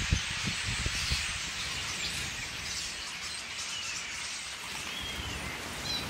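A large flock of birds calling together overhead: a dense, steady wash of many overlapping calls with a few clearer chirps and whistles standing out. A few low bumps sound right at the start.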